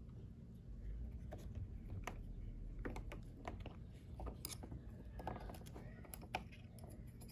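Small irregular clicks and taps of a metal shock tower and a hex driver being handled and fitted onto an RC buggy's front bulkhead, over a low steady hum.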